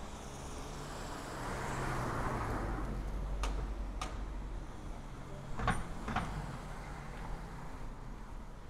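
A car passing slowly, its engine and tyre noise swelling about two seconds in and then fading. Two sharp clicks follow, then a louder pair of knocks about half a second apart near the middle.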